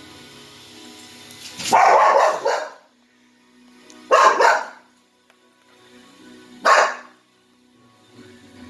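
Dog barking at a robot vacuum: three loud barks a couple of seconds apart, the first drawn out longer than the others, over a steady low hum.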